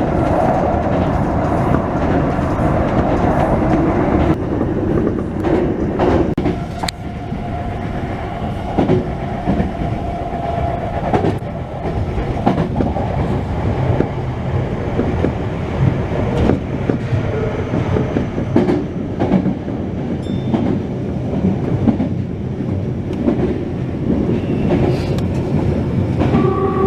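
Tokyo Metro Tozai Line train running between stations, heard from inside the car: a steady rumble with short clicks of the wheels over rail joints.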